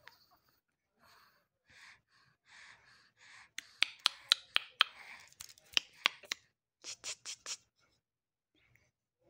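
Soft breathy whispering in short bursts, with a quick run of sharp mouth clicks in the middle, the sort of sounds made to get a baby's attention.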